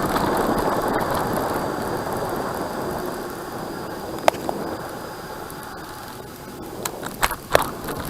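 Steady rushing wind and tyre noise from riding a road bicycle, slowly fading. A sharp click comes about four seconds in and a few more come near the end.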